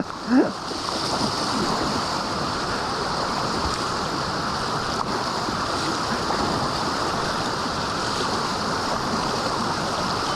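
Steady rush of the river's falls below the dam: water pouring and churning with no change.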